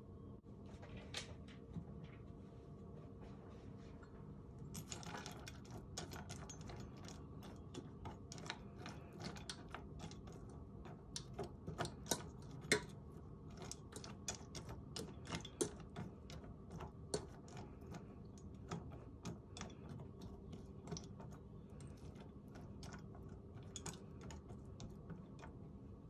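A metal fork stirring soaked dog kibble in a stainless steel bowl: irregular clinks and scrapes of the fork against the bowl and the wet pellets, starting about five seconds in.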